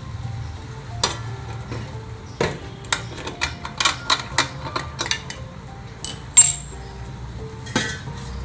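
Stainless-steel idli plate stand and steamer pot clinking and clattering metal on metal as the batter-filled plates are lowered in and the domed steel lid is put on. There is a string of sharp clinks, with the loudest, ringing clang about six seconds in.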